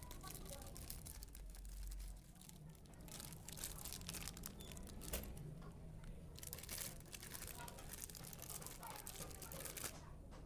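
Packaging being crinkled and rustled by hand, with irregular crackles and a denser burst of crinkling about two-thirds of the way through.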